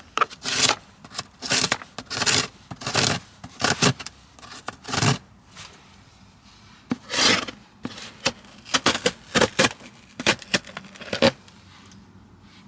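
A run of short, irregular scraping and rubbing noises, about a dozen in all, with a quieter pause around six seconds in.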